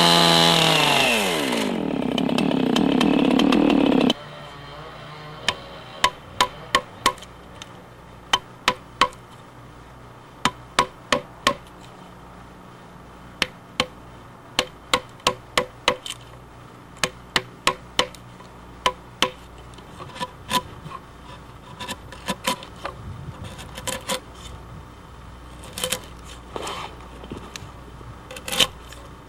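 Chainsaw running in a log, its pitch dropping over about two seconds before it cuts off about four seconds in. Then a chisel is driven into the log by quick mallet blows, sharp taps in groups of three or four, finishing the sides of a lock notch.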